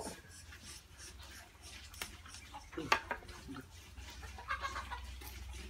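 Chickens clucking off and on in the background, the loudest call about three seconds in, with a few small clicks.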